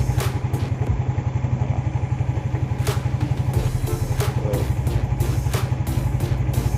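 Yamaha Mio GT scooter's single-cylinder four-stroke engine idling steadily, with a few sharp clicks over it.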